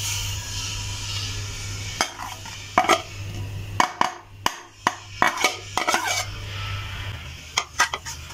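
Spices poured from a plate into a hot frying pan, then a spatula clicking and scraping against the pan as they are stirred, over a steady low hum.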